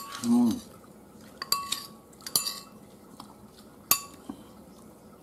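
Metal spoons clinking against a plate and bowls while food is served at the table: a handful of separate sharp clinks with a brief ring, the loudest about four seconds in.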